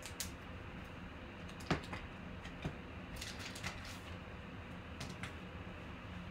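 Light clicks and taps of clear plastic card holders as trading cards are handled and set down on a table, a few scattered sharp clicks with the loudest about two seconds in, over a faint steady low hum.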